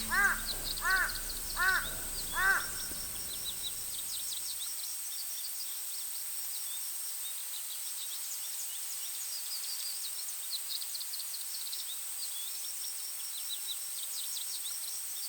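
A crow cawing four times in even succession in the first few seconds, over steady outdoor ambience with faint high chirping of small birds or insects.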